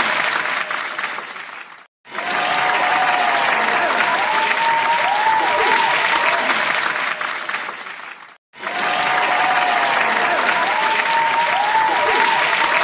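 Crowd applause: dense clapping from many hands with some voices in it, as a looped sound effect. The clapping fades, cuts to silence for a moment about two seconds in and restarts, then does the same again about eight seconds in.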